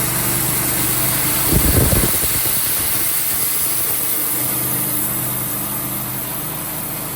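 Sawmill engine running steadily, with a brief louder low rumble about a second and a half in.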